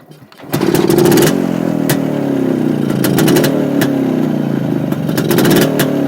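Motorcycle engine running, coming in suddenly about half a second in and carrying on steadily with small rises and falls in pitch, with scattered sharp clicks over it.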